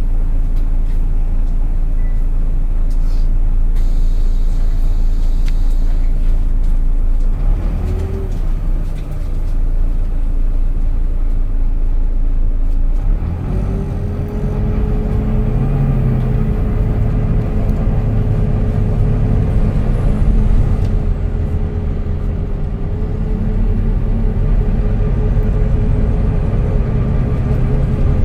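Volvo B9TL double-decker bus heard on board, its diesel engine running. The engine note rises briefly about eight seconds in, then climbs again about halfway through and holds a steady whine over the engine drone as the bus drives on.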